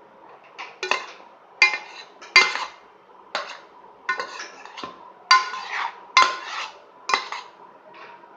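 Metal spoon clinking and scraping against a dish while a mixture is stirred. There are about ten strokes at an irregular pace, several with a short metallic ring.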